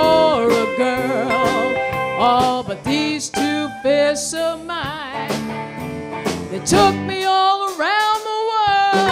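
Live blues band in an instrumental break: electric lead guitar soloing with bent, wavering notes over electric bass, drum kit and rhythm guitar.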